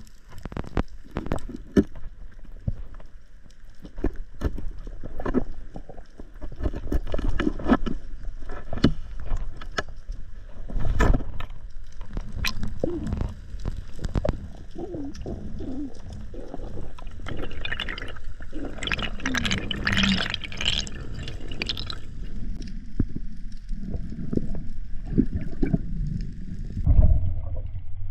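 Underwater recording of water gurgling and sloshing around the camera, with many sharp clicks and knocks while a speared fish is worked on the spear shaft. A few seconds of louder hissing water come a little after the middle, and a heavy thump near the end.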